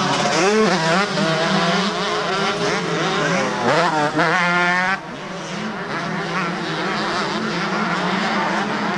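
Two-stroke motocross bike engines revving hard and rising and falling in pitch as riders accelerate and back off. One engine climbs steeply in pitch about four seconds in, and the sound drops suddenly about a second later.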